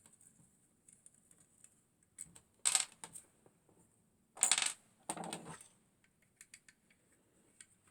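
Small metal parts of a dismantled vacuum-cleaner motor clinking as they are handled and set down: scattered light ticks, with a loud metallic clatter about two and a half seconds in and two more just before the fifth second.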